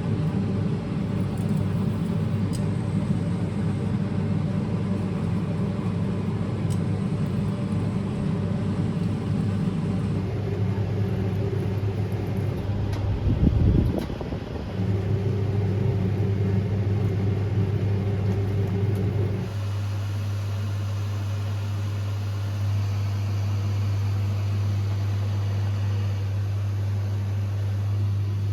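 A steady low mechanical hum that changes character abruptly about ten, fourteen and twenty seconds in, with a brief louder swell just before the fourteen-second change.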